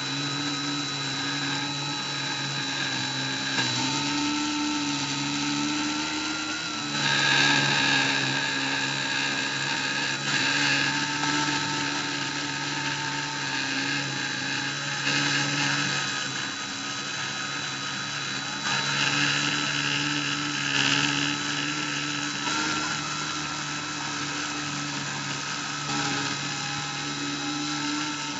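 Dremel rotary tool spinning as the spindle of a Cyclone PCB CNC mill, cutting into acrylic: a steady high whine with tones that shift in pitch, and it grows louder in several stretches.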